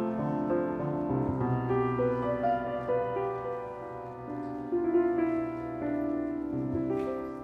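Grand piano playing a slow piece of held notes and chords, with the sound fading near the end as the final chord dies away.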